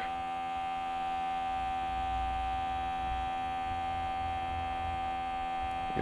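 Air pump of an SDT 201 smoke leak detector running with a steady hum, a single constant tone with overtones, while the switched-on machine warms up to start producing smoke.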